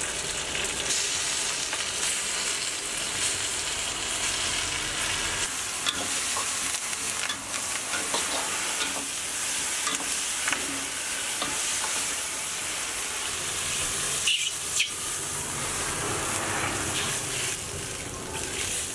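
Food sizzling and frying in a hot wok over a high gas flame, with a metal ladle stirring and scraping against the wok in scattered clicks.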